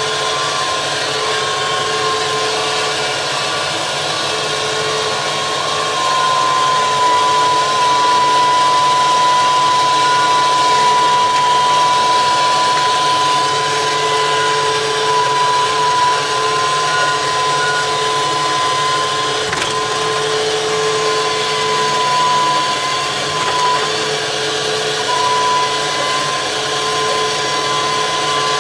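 Mantis 6010 crawler crane's engine and hydraulic drive running steadily, heard from inside the operator's cab, with a steady high-pitched whine over the machine noise, as the crane tracks onto a lowboy trailer. It grows a little louder about six seconds in.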